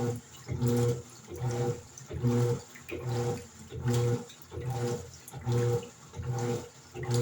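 Electrolux LED14 top-load washing machine agitating a load: the motor hums in short pulses about twice a second as the agitator swings back and forth, with water sloshing in the tub.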